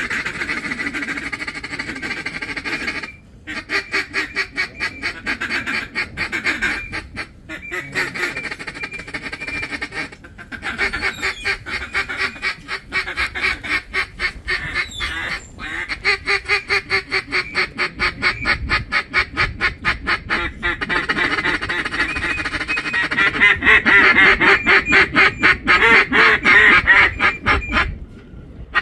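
Duck quacking in quick, rhythmic runs of many calls a second, with a few short breaks and loudest near the end.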